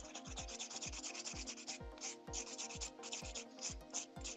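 Hand nail file rasping back and forth over a cured sculpted gel nail in quick, even strokes, about four or five a second.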